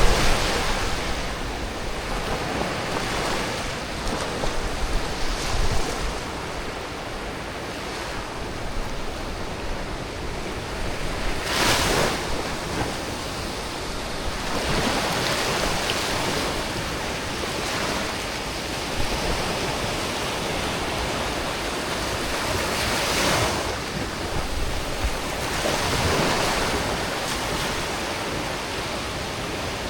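Ocean surf with white foam washing ashore, a continuous hiss that swells every few seconds as waves break, with sea wind blowing.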